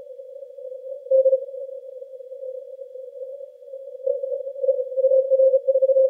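Morse code (CW) on the 80-metre amateur band, heard through a Yaesu FTdx10 receiver with a narrow CW filter: steady band hiss squeezed to a single mid-low pitch, with a keyed tone about a second in and rapid on-off Morse characters from about four seconds on.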